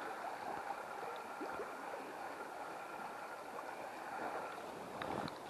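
Faint, steady babbling of water running through a small river riffle, with a couple of faint clicks near the end.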